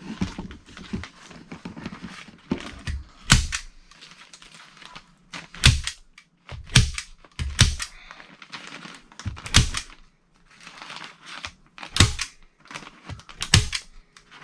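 Staple gun firing about eight times, single sharp shots every one to two seconds, fastening a sheet of paper, with faint rustling of the paper between shots.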